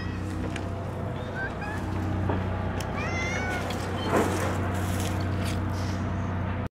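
Stray cat meowing: a couple of short chirping calls about a second and a half in, then a longer meow about three seconds in, over a steady low hum. A brief rustle about four seconds in.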